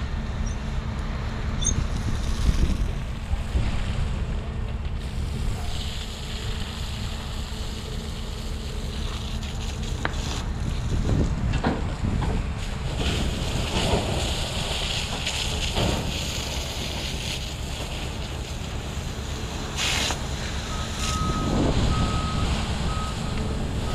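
Fire hose spraying water onto smouldering ground and debris, a hiss over a steady low rumble, with a few knocks. Near the end a high beep repeats in short pulses.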